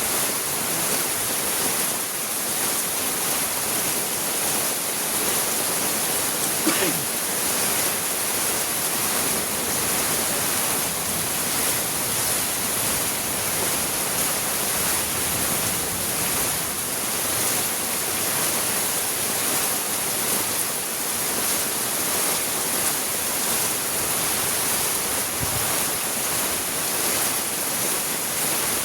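Rain falling steadily: an even, unbroken hiss. About seven seconds in, a brief squeak sweeps up in pitch over it.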